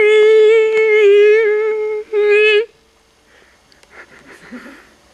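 A high hummed note held for about two seconds, then after a brief break held again for about half a second, wavering slightly in pitch.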